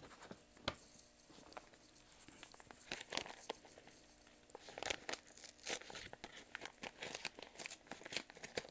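A paper envelope being torn open by hand: crinkling and short rips of paper, sparse at first and much busier in the second half.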